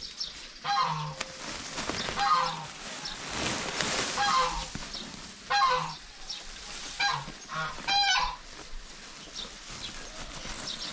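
Geese honking, about eight short calls over the first eight seconds, then they stop. A rustling of handled grass and sacking runs under the calls.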